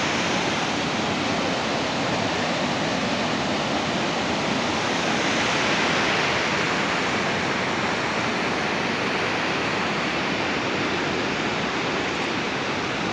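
Steady rushing of flowing water, an even noise that holds level throughout.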